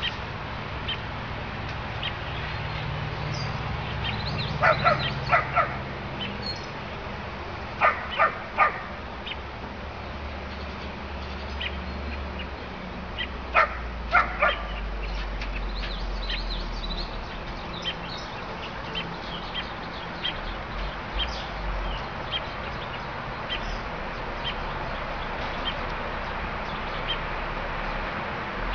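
Coonhound barking in three short runs of three or four barks in the first half, with faint yips and clicks in between over a steady background hiss.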